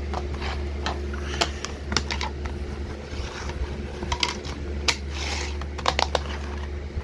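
Plastic DVD cases and a disc being handled on a wooden floor: a run of irregular clicks and taps over a steady low hum.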